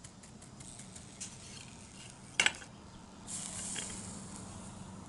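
A flux brush scratches lightly at a metal seam, then a sharp clack sounds about halfway through. Near the end a hot soldering iron is laid on the fluxed joint, and the flux gives a brief hissing sizzle that fades away.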